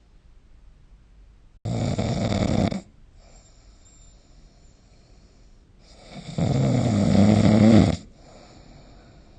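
A sleeping person snoring: two loud snores. The first is short and starts abruptly about a second and a half in. The second is longer and builds up about six seconds in. Soft breathing comes between them.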